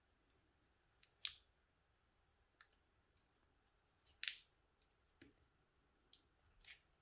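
Faint handling noise from a lithium-ion tool battery's bare cell pack being turned over in the hands: a few short clicks and scrapes of the plastic cell holder and nickel strips. The two loudest come about a second in and about four seconds in.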